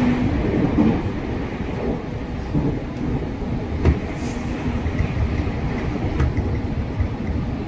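JR Central 315 series electric train running on the rails with a steady rumble and a few sharp clicks from the wheels over rail joints.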